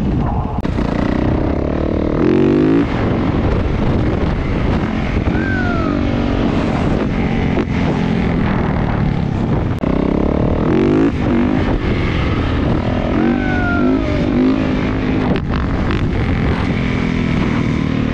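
Motorcycle engine revving up and down repeatedly while riding, its pitch climbing steeply twice.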